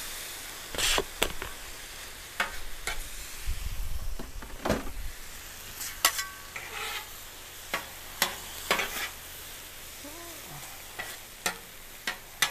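Teriyaki-marinated chicken pieces sizzling on a hot Blackstone flat-top griddle, over a steady hiss. Metal spatulas scrape and clack on the griddle's steel top about a dozen times as the chicken is turned and spread.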